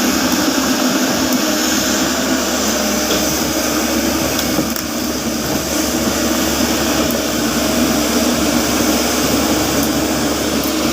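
Caterpillar 307.5 mini excavator's diesel engine running steadily under working load.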